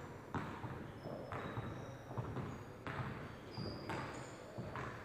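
Basketball being dribbled on a hardwood gym floor, a bounce about once a second echoing in the hall, with short high sneaker squeaks between bounces.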